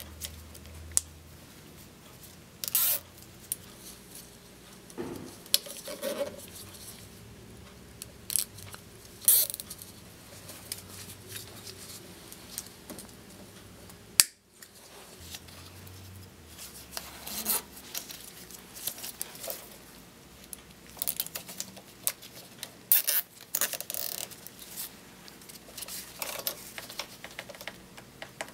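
Plastic zip ties being pulled tight around bicycle wiring: short ratcheting rasps and clicks at irregular intervals, with one sharp snap about halfway through.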